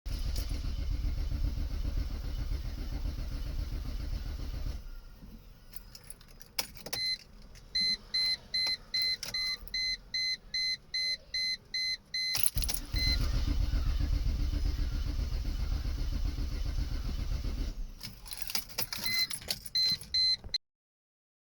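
2004 Mercedes-Benz C230 Kompressor's supercharged four-cylinder being cranked by the starter for about five seconds without firing, then cranked again for another five seconds, still not catching: a crank-but-no-start fault. Between and after the cranking tries, keys click in the ignition and the car's warning chime beeps about twice a second.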